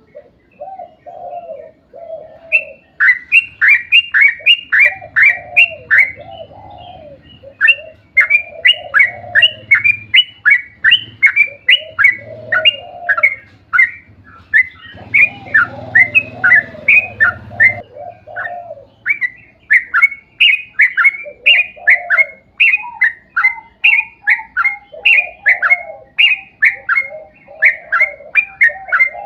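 Yellow-vented bulbul song: a long fast run of bright, repeated notes, two or three a second, mixed with lower bubbling warbled phrases.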